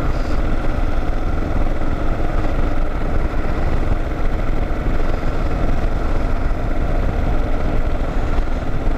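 2009 Kawasaki KLR650's single-cylinder engine running steadily as the bike cruises, with wind and road rush over it.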